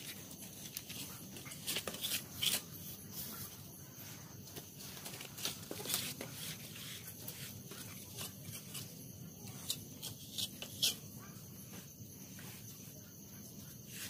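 Scattered short scrapes and taps of a trowel and wooden float working wet cement render on concrete steps, over a steady low hum. The sharpest scrapes come about two, six and eleven seconds in.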